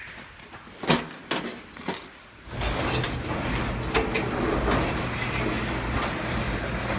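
A few knocks and clicks, then from under three seconds in an electric garage door opener runs steadily with a low motor hum and rumble as the big door closes.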